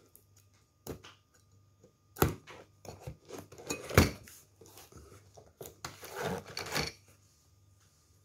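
Cardboard carton being cut open with a knife and its flaps pulled back: a sharp click about a second in, louder knocks and scrapes around two and four seconds, then a crackling rustle of cardboard and plastic wrap.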